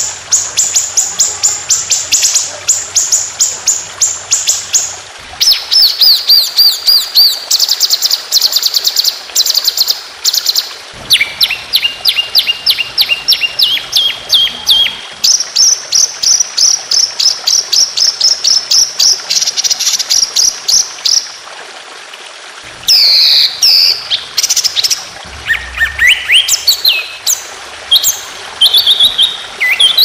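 Songbird singing long runs of fast repeated high notes, the rapid 'tembakan' phrases used in song-bird masteran recordings. The notes come about four a second, and the note type changes every few seconds. Near the end come a few slower sweeping whistles.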